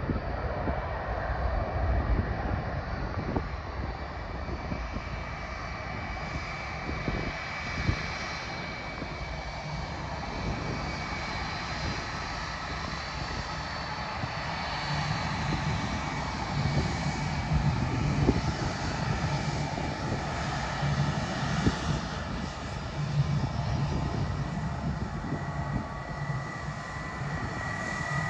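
Airliner engines running, a steady noise with a high whine on top.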